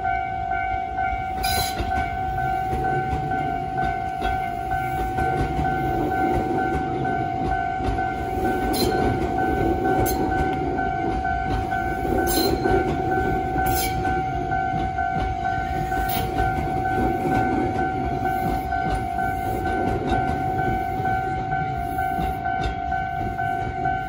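Japanese railway level crossing alarm sounding its standard electronic bell tone without a break, while a Tobu electric commuter train rumbles slowly past, with a few sharp clicks from its wheels.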